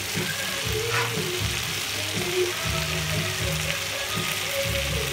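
Fried fish pieces and chopped tomatoes sizzling in a wok while a spatula stirs them. Background music plays underneath.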